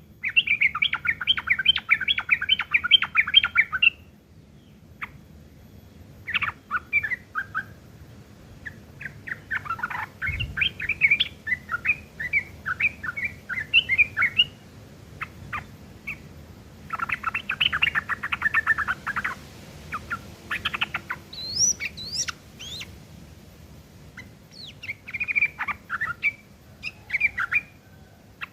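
Yellow-vented bulbul (trucuk) singing a harsh, rapid chattering twitter in repeated bursts of a few seconds each, its song filled in with mimicked long-tailed shrike (cendet) phrases. A few high, sweeping whistled notes come in about three-quarters of the way through.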